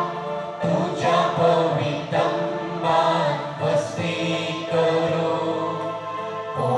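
A boy singing a verse of a responsorial psalm into a microphone, in phrases that rise and fall.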